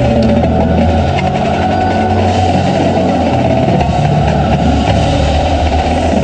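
Indoor drumline performing: marching snare, tenor and bass drums playing together over sustained low bass notes from the front ensemble.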